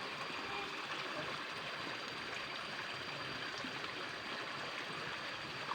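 Water flowing steadily along a ditch, an even running-water sound.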